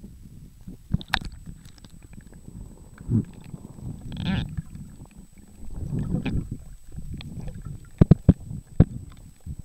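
Sea water sloshing and gurgling against a handheld waterproof camera as it moves from the surface to underwater, a muffled low rumble. Several sharp knocks of handling come about eight seconds in.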